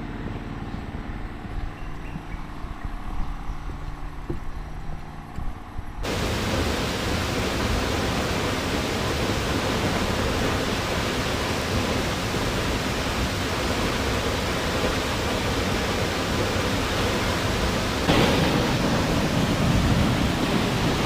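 Steady rushing of a waterfall, cutting in abruptly about six seconds in after a quieter stretch, and a little louder near the end.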